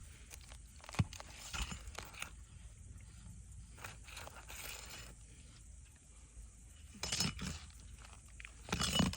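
Faint scraping and crackling of asphalt roof shingles being handled and worked loose, with a single sharp tap about a second in and busier scraping near the end.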